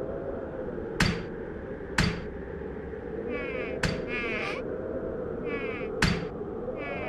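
A fly buzzing in short, wavering spells that come and go from about three seconds in, over a steady low hum. Sharp clicks sound every second or two, four in all.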